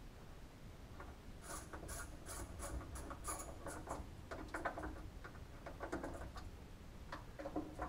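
Hand screwdriver turning sheet metal screws into the steel door edge to fasten the rubber door end seal: faint, irregular scratchy clicks.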